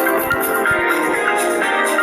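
A Samsung Galaxy S5 ringtone playing a melodic tune through the phone's small speaker, with almost no bass.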